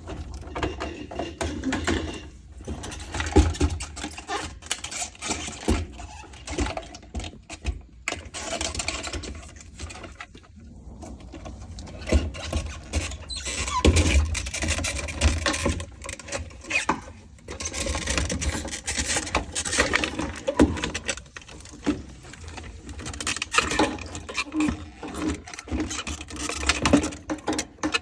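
Irregular rattling, scraping and clicking of tools and parts being handled, in uneven swells with brief lulls.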